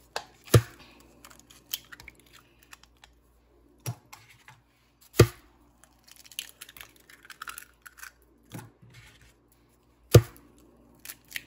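Raw eggs being cracked one after another into a plastic bowl: three sharp knocks about five seconds apart, with smaller clicks and light crackling of shell in between.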